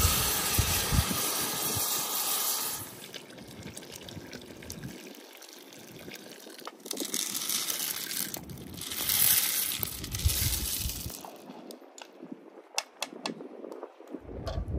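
Water poured from a kettle into a steel cooking pot of stew for about three seconds at the start. Later come two spells of splashing as pinto beans are tipped from a bowl into the liquid, then a few light clicks near the end.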